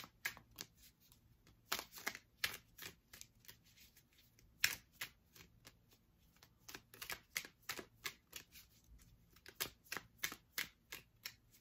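Tarot deck being shuffled by hand: a faint run of irregular sharp card snaps and taps, several a second, with a short lull about halfway through.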